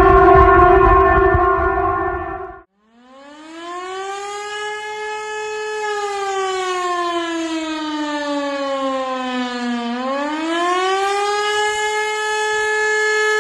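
A loud, steady alarm tone cuts off abruptly about two and a half seconds in. After a brief gap, a civil defense siren winds up into a wail, slowly falls in pitch, rises again and holds, then begins to fall near the end.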